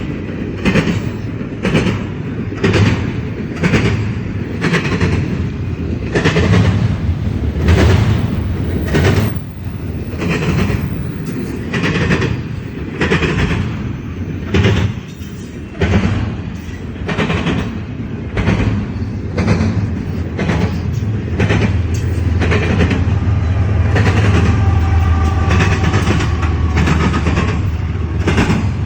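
Long CSX freight train rolling past, its wheels clacking over the rail joints in a regular beat of about one to two clicks a second over a steady rumble. In the last few seconds the low rumble grows louder and steadier.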